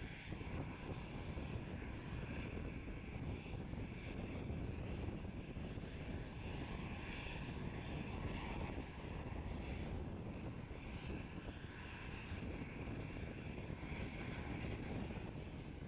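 Airbus A320's twin turbofan engines running as it taxis and turns on the runway: a steady rumble with a whine on top.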